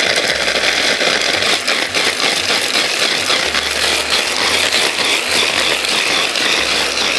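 Electric hand blender with its mini chopper attachment running steadily, its blades grinding chunks of Parmesan cheese that rattle against the bowl as the unit is lifted and shaken.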